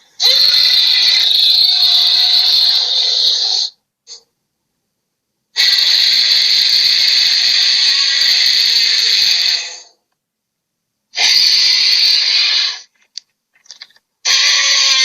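Monster creature sound effects: four harsh, hissing screeches of a few seconds each, the last one short and the others longer. Each cuts off into dead silence before the next.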